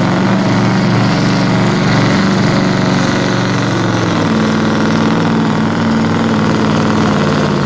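Supersport-class truck-pulling truck's diesel engine running hard under full load as it drags the weight sled, a loud steady drone. Its pitch steps up slightly about four seconds in.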